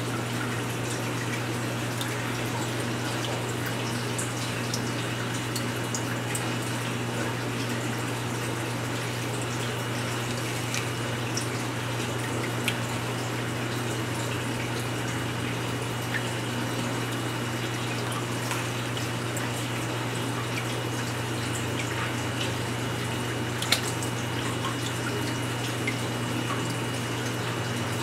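Aquarium water circulating: a steady wash of running water over a constant low pump hum, with a few small drips or ticks, one sharper about three quarters of the way through.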